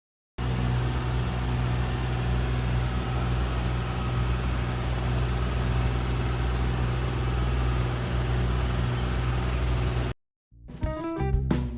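A vehicle engine running steadily, a low hum with a hiss over it, cutting off abruptly near the end; guitar music begins right after.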